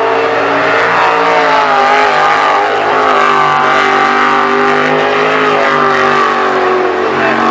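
V8 jet sprint boat engine running hard at full race pace, its pitch rising and falling as the throttle is worked.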